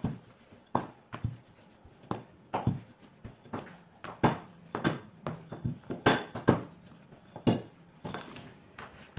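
Wooden rolling pin rolling out pastry dough on a metal worktop: irregular short knocks and thuds as the pin and the lifted, turned dough strike the counter.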